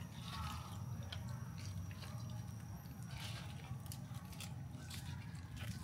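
Scattered soft crunching and crackling of leafy vegetables being handled or eaten, over a low steady hum.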